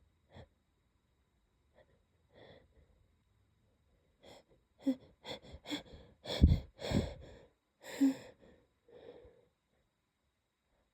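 A person's held-back sneezes: a few quiet breaths, then from about four seconds in a run of short, catching in-breaths, and stifled sneezes bursting out through a closed mouth. The loudest two come close together about halfway through, and another follows about a second later.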